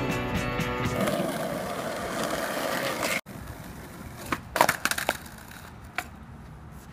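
Music that cuts off abruptly about three seconds in, followed by a skateboard rolling on asphalt. About a second after the cut comes a quick cluster of sharp board clacks and impacts, then a single knock near the end.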